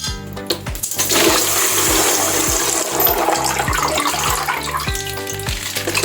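Water rushing for about four seconds, starting about a second in and fading out near the end, over background music with a steady beat.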